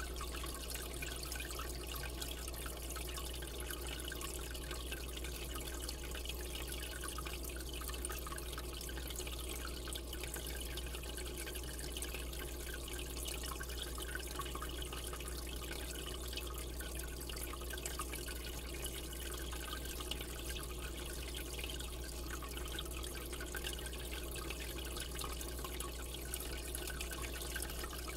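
Aquarium water circulating: a steady trickling, splashing sound over a low, steady hum.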